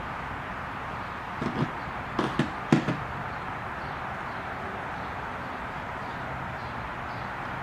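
A short run of about five light clicks and knocks from small tools and parts being handled, over a steady background hiss.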